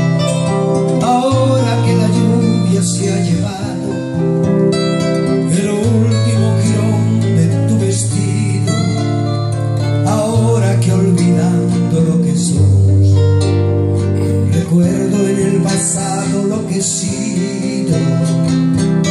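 A man singing to his own nylon-string classical guitar accompaniment. The guitar plays low bass notes that change every second or two under the sung melody.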